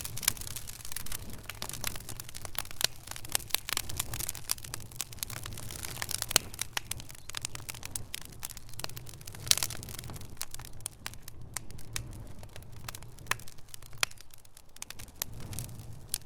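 A fire crackling: dense, irregular pops and snaps over a low steady rumble.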